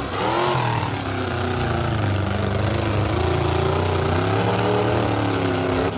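A small motor running steadily, its pitch wavering slowly up and down over a hiss.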